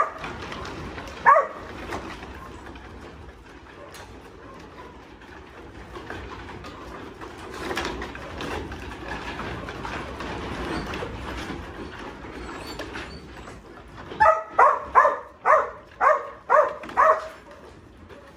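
Black and tan yard dog barking at a pen of sheep: two single barks near the start, then a run of about seven barks at roughly two a second near the end. It is a working bark, used to force the sheep along.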